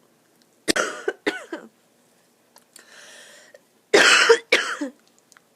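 A person coughing into their arm in two fits: three coughs about a second in, a drawn breath, then two louder coughs about four seconds in. A dreadful cough left by a chest infection.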